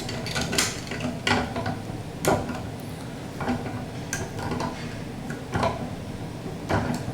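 Irregular metallic clicks and clinks as a washing machine fill hose's threaded metal coupling is screwed and snugged onto the supply valve.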